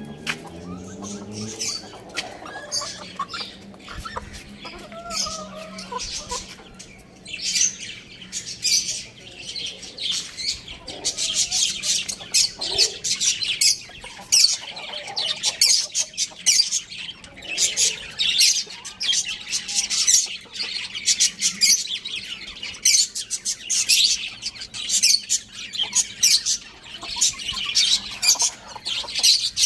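Small birds chirping: a dense stream of short, high chirps, thickest from about seven seconds in, with a few fainter, lower calls among them.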